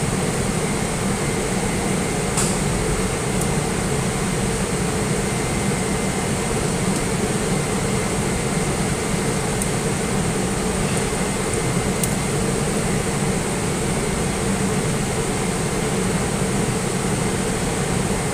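Steady mechanical hum with hiss, even throughout, with a few faint clicks around two to three seconds in and again near ten and twelve seconds.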